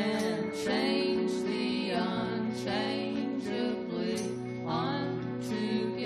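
Live rock band playing a song, with electric guitars, a Roland Juno-DS keyboard and a drum kit, with cymbal and snare hits marking the beat.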